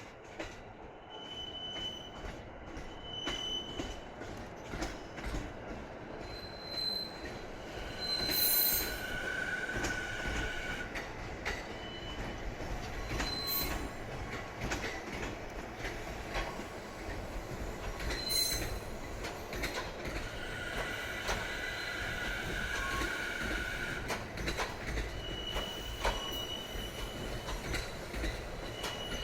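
A train rolling past, its steel wheels squealing against the rail in several high-pitched stretches over a steady rumble, loudest around 8–10 seconds in and again from about 18 to 24 seconds. Scattered sharp clicks of wheels over rail joints run through it.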